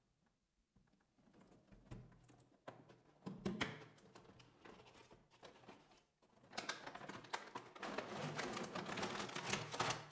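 Hands handling the toy's packaging: scattered clicks and a brief crackly burst, then a longer stretch of dense crinkling and rustling near the end.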